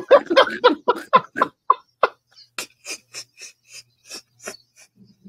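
Men laughing: a run of quick, breathy laughs, loud at first, then growing fainter and further apart until they trail off.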